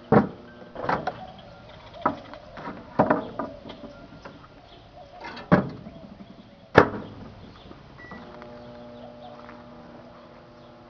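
Microwave oven being loaded: a series of knocks and clunks as something is handled and put inside, then the door shuts with a sharp clack about two-thirds of the way through. A short keypad beep follows, and the oven's steady hum starts again.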